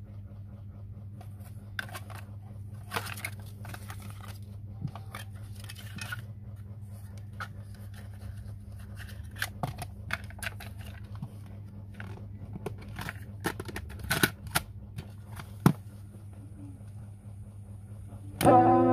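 Plastic and paper handling of a cassette: the inlay card rustling, the clear case clacking and the tape clicking into an Aiwa TX446 portable cassette player, over a steady low hum. Near the end a guitar-led song starts playing from the tape.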